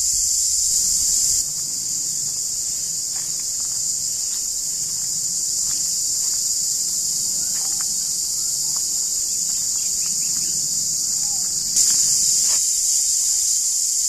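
Cicada chorus: a loud, steady, high-pitched drone that dips in level about a second and a half in and comes back up near the end.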